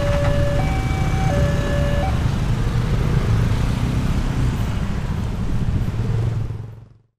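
Indonesian railway level-crossing siren alternating between a high and a low note, each held about two thirds of a second, stopping about two seconds in. Under it a loud low engine rumble carries on and fades out near the end.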